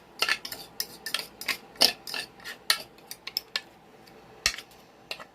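A kitchen utensil stirring and scraping cornbread batter in a mixing bowl, with irregular sharp clicks and scrapes against the bowl, two or three a second.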